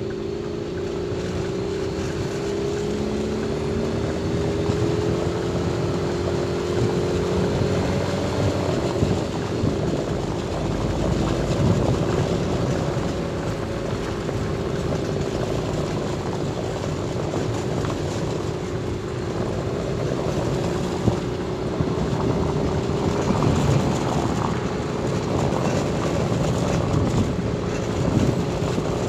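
Car engine and tyre noise heard from inside the moving vehicle: a steady drone whose hum climbs slowly in pitch over the first several seconds, then holds, with a few small bumps from the road.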